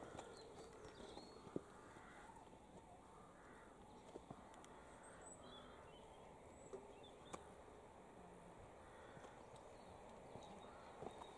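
Near silence: faint rural outdoor ambience with a few short, distant bird chirps and occasional light clicks.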